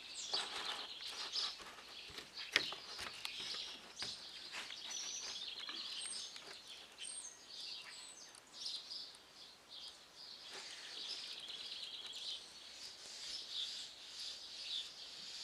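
Wild songbirds chirping and trilling in the background, busy and continuous, with a few sharp knocks or clicks.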